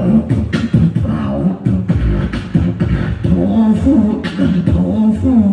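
A boy beatboxing: quick mouth-made drum hits with a wavering hummed vocal line running over them.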